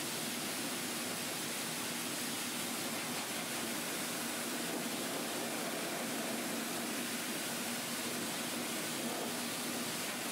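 Grooming force dryer (high-velocity pet dryer) running steadily: a continuous rush of air from its hose over a low motor hum.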